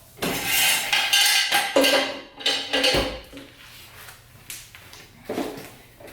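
Steel parts clattering and scraping as a loose exhaust pipe is propped up on a metal jack stand: about two seconds of rattling with a ringing metallic note, then a few separate knocks.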